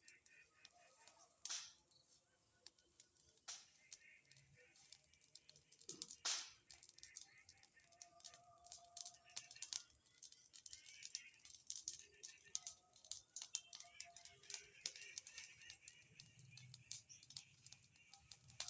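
Wood bonfire crackling faintly: a dense, irregular run of small pops and snaps, with a few louder cracks.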